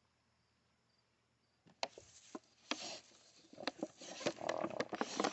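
Irregular sharp knocks and clicks with scraping, rustling noise, starting about two seconds in.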